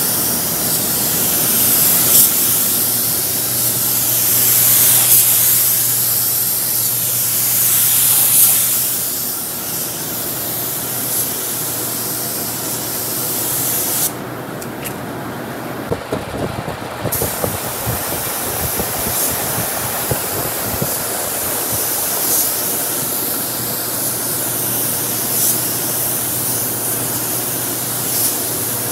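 Air-fed gravity-feed spray gun hissing as it sprays primer in sweeping passes, the hiss swelling and fading with each pass. The spray stops for about three seconds around halfway, then resumes.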